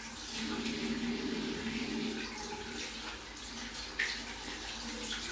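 Water running steadily from a tap, with a short click about four seconds in.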